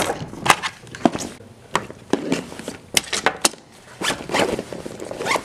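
Handling noise as a fabric bag is set down on a table and rummaged through: irregular knocks and clicks with rustling in between.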